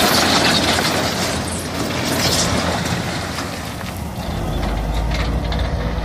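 Broken concrete rubble sliding and clattering out of a raised dump trailer bed in a continuous rattle of chunks knocking on steel and on each other. Underneath is a steady low motor hum that gets stronger about four seconds in.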